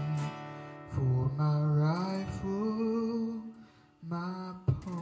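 A man's voice singing long, held notes over a strummed acoustic guitar in a slow country ballad. The music almost drops out for a moment, then a guitar strum comes back in near the end.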